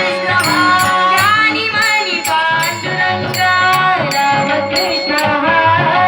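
Music: a woman singing a wavering melodic line over instrumental accompaniment, with percussion strokes keeping a regular beat.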